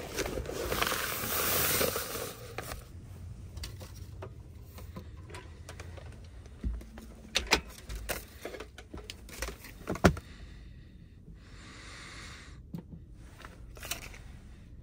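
Rustling and scraping as a thermal blanket is pressed and fitted into place inside a vehicle for about the first two seconds, then scattered light clicks and knocks of gear being handled.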